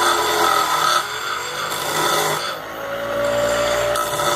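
Small electric motor running under load, grinding down a metal screw: a steady motor whine with a rasping grind. The grind eases about two and a half seconds in as the motor's pitch slowly rises.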